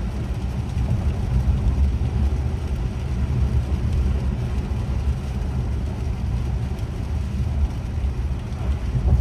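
Low, steady road rumble inside a 2024 Acura TLX's cabin as it drives on rain-soaked pavement, with the hiss of wet tyres and rain mixed in.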